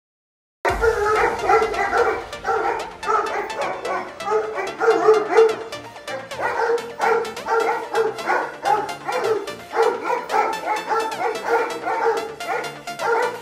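Bully Kutta dogs barking repeatedly in quick, overlapping barks over background music, starting suddenly about half a second in.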